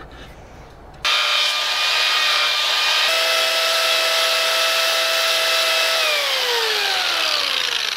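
Angle grinder fitted with a belt-drive mini carver arm and two-tooth saw blade, switched on about a second in and cutting into syntactic foam with a steady whine and a rasping hiss. Over the last two seconds its whine drops steadily in pitch.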